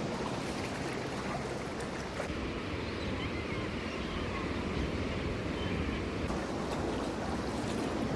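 Ocean surf washing in as a steady rush of waves.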